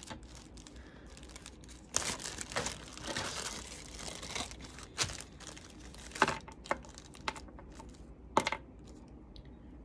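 Clear plastic zip-top bag crinkling as it is handled and pulled open, loudest from about two to four and a half seconds in, followed by a few sharp clicks.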